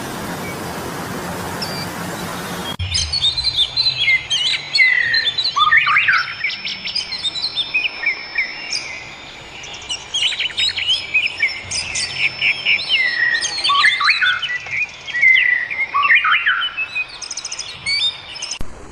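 Several wild birds chirping and singing in a dense, overlapping chorus of quick chirps, trills and a few held high whistles. It is preceded by a steady rushing hiss that cuts off abruptly about three seconds in.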